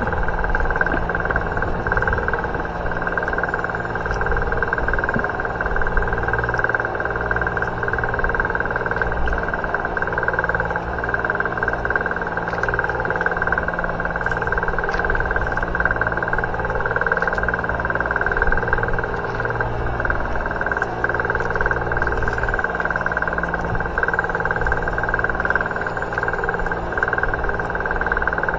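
A boat's motor running steadily.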